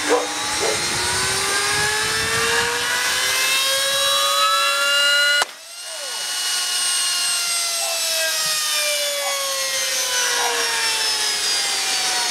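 Vacuum-cleaner motor spinning a CD up to its bursting speed with a rising whine; about five and a half seconds in the disc shatters with a sharp crack, and the motor, its disc gone, winds down with a slowly falling whine.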